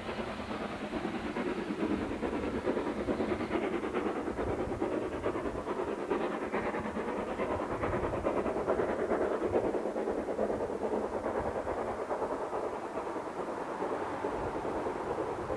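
Steam-hauled train running along the track, a steady rumble and clatter of the locomotive and coaches on the rails.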